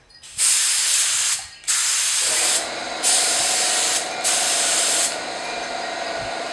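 Central Pneumatic purple HVLP spray gun hissing loudly in four bursts as the trigger is pulled for passes of thick water-based alkyd paint. About two seconds in, an air compressor starts running with a steady hum underneath.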